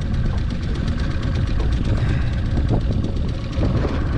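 Small 9.9 hp kicker outboard motor running steadily at low speed.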